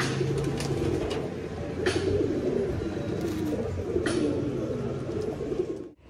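Domestic highflyer pigeons cooing continuously, with three short, sharp noises. The cooing cuts off suddenly just before the end.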